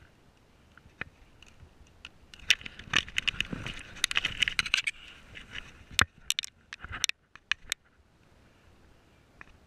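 Dry grass rustling and crunching underfoot, with many sharp crackles and clicks, as someone climbs out of a canoe onto a grassy bank. It is densest between about two and five seconds in, then thins to scattered clicks and fades out near the end.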